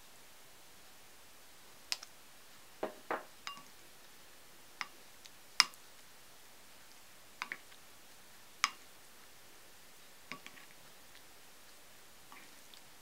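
Kitchen utensils and small dishes clicking and tapping as the seasonings for sushi vinegar are measured out and mixed: about ten separate light knocks, some with a brief ring, with quiet between them.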